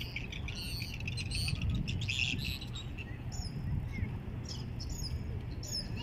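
Small birds chirping, many quick irregular high-pitched chirps, over a steady low rumble.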